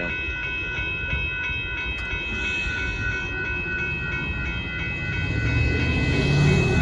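Union Pacific freight train passing, with a steady high-pitched ringing throughout and a low rumble that grows louder about five seconds in.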